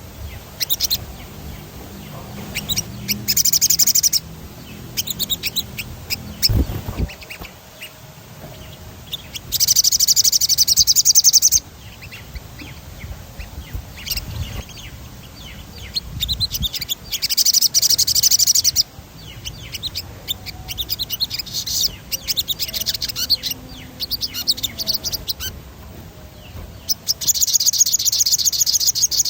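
A sogon songbird singing: rapid high rolling trills lasting about two seconds each, four times, with short chirps in between.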